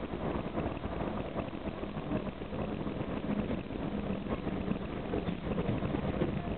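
Karosa B741 articulated city bus's diesel engine running steadily with road noise, heard from inside the bus at the windscreen as it drives and turns.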